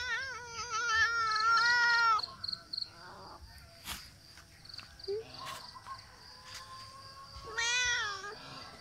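Domestic cat meowing: one long, wavering meow over the first two seconds, then a shorter meow near the end.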